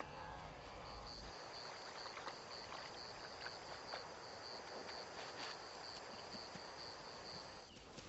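Faint outdoor ambience with an insect chirping: a high, even chirp repeating about two to three times a second, with a few faint scattered clicks.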